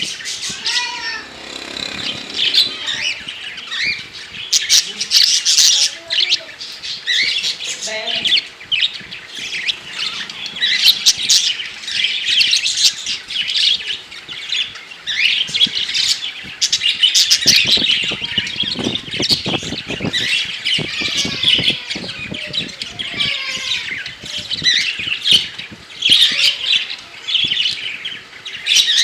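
A flock of caged budgerigars and cockatiels chattering, chirping and squawking without a break. About two-thirds of the way through comes a spell of rapid knocks or rattles.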